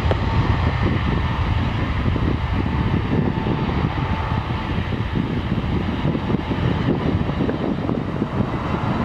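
Twin jet engines of an Airbus A320-family airliner at takeoff thrust during the takeoff roll: a steady, deep rumble with a faint high whine, easing slightly toward the end as the jet moves away.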